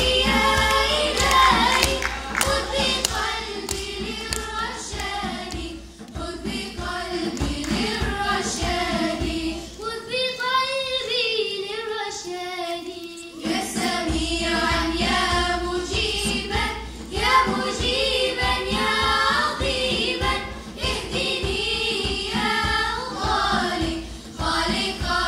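A girls' choir singing an Arabic nasheed together, accompanied by a hand drum. About ten seconds in, the drum stops for about three seconds and the voices carry on alone, then the drum comes back in.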